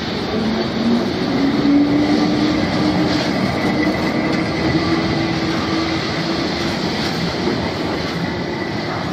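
Lisbon Carris Remodelado heritage tram passing close by: its wheels rumble and rattle over the tracks, with a steady low hum that rises slightly in pitch about a second in and then holds as the car goes past.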